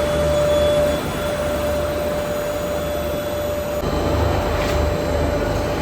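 Double-drum continuous carbonization furnace running in a test, heating up with the reactor at about 610 °C: a steady machinery drone with a held hum tone over it. The sound shifts slightly about four seconds in.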